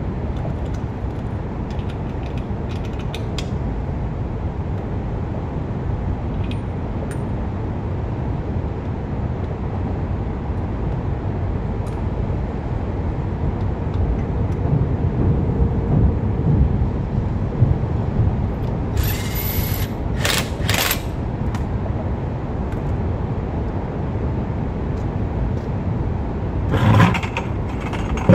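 Hand ratchet clicking in short runs as lug bolts are tightened on a pickup truck's front wheel, over a steady low background rumble, with a brief louder noise near the end.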